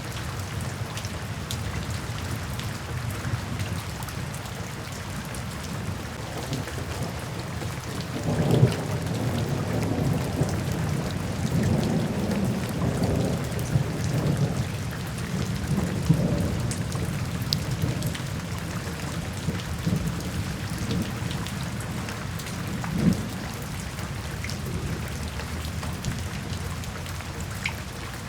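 Steady rain falling into puddles, with a roll of thunder that swells about a third of the way in and rumbles on for several seconds, then a shorter clap of thunder later.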